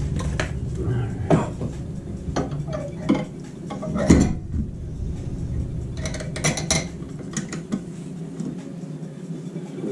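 Scattered metal clinks and knocks as a steel gas pipe with a brass fitting is handled and set against the wall in metal pipe straps, with a quick run of clinks about six seconds in. A low steady hum sits underneath and drops away about eight seconds in.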